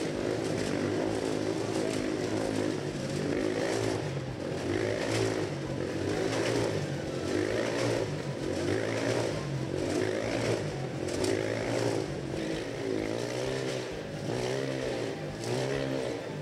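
Two motorcycles riding laps inside a steel mesh Globe of Death, their engines rising and falling in pitch over and over as they circle the sphere.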